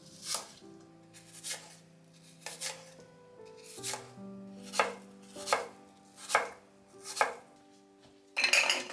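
Kitchen knife chopping on a cutting board in slow, unhurried single strokes, roughly one a second with the odd quick pair. A brief rough, noisy sound comes near the end.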